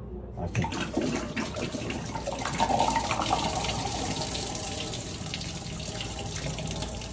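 Water pouring out of an upturned plastic bottle into a kitchen sink, the bottle swirled so the water drains in one steady twisting stream. The pour starts about half a second in.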